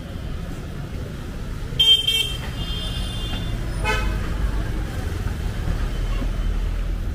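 Road traffic with vehicle horns honking over a steady low rumble of engines: a loud short honk about two seconds in, a second honk right after it, and another short honk around four seconds in.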